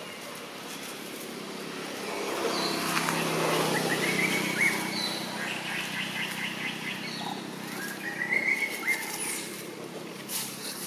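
Short, high chirping calls in two clusters, one around a quarter to halfway through and another about three quarters of the way through, over a steady outdoor background with a faint low hum.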